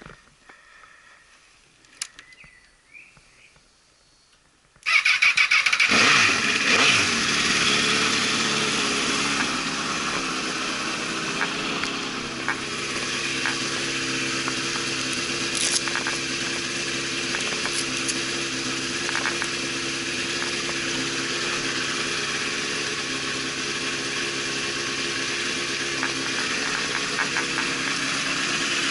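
A 2005 Honda CBR1000RR Fireblade's inline-four engine starts about five seconds in after a few quiet seconds. The revs flare as it catches, fall back, and then settle into a steady idle.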